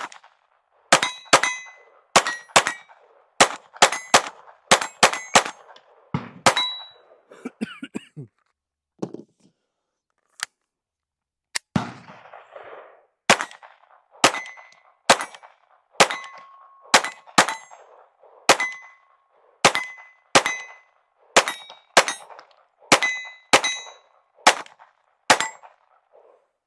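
Taurus TX22 .22 LR semi-automatic pistol firing Browning hollow points in rapid strings, with more than twenty shots, many followed by a short metallic ring. There is a pause of a few seconds partway through. The pistol is cycling this ammunition without a stoppage.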